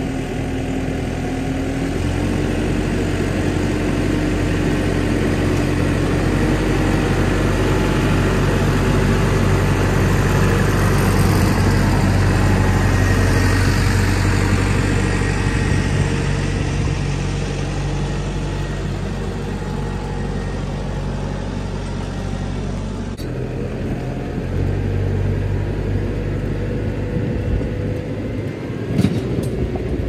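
Tractor diesel engine running steadily under load as it pulls a three-to-four-furrow mounted plough through grass. It grows louder as the tractor comes up and passes close by around the middle, then eases off. A short sharp knock comes near the end.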